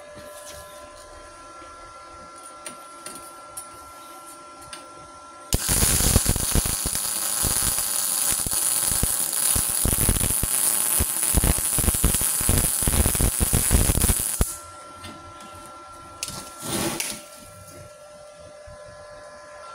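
MIG welding arc from a MultiPro MIG-MAG 200S G-SP inverter welder running 0.8 mm wire under pure CO2 shielding gas at about 150 amps. The arc starts about five seconds in with a steady crackling sputter and runs for about nine seconds before it stops abruptly. A brief noisy burst follows a couple of seconds later.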